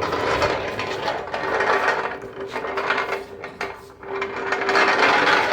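Small wheels of a red wheeled shop roller rattling and rumbling as it is rolled across the shop floor, easing off about four seconds in and then picking up again.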